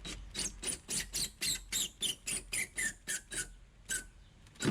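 Power drill driving a screw into the Jeep Wrangler JK's plastic tail-light housing: a rapid series of short squeaky clicks, about five a second, whose pitch falls as the screw tightens, stopping a little before the end.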